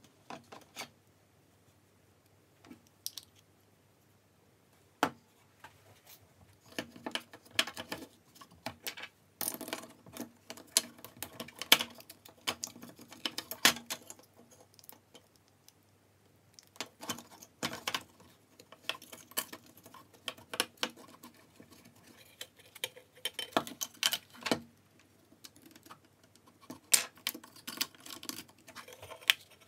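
Irregular clicks, taps and light rattles of plastic and metal parts of a Makita 6222D 9.6 V drill driver being handled and fitted, as its motor and gearbox are pressed together and seated in the plastic housing. The clicks are sparse at first and come in busy clusters through most of the rest.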